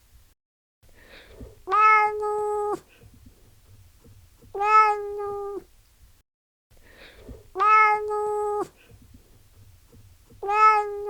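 Domestic cat meowing: one long, level-pitched meow about every three seconds, each call the same as the last, four in all.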